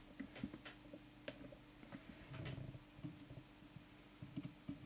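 Faint, irregular small clicks and scrapes of a plastic trimming tool working the core of a CB radio's tuning coil during alignment, with a slightly longer scrape in the middle, over a low steady hum.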